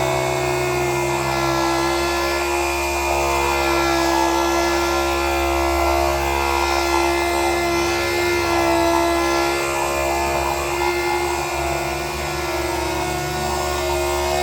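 Power sander running steadily at constant speed, wet-sanding automotive clear coat with 2,000-grit paper, the pad's rough scrubbing over the motor's steady hum.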